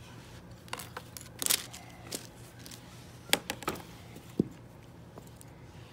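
Wooden popsicle sticks clicking and clattering lightly as they are picked up and set down, in a scattered handful of short clicks.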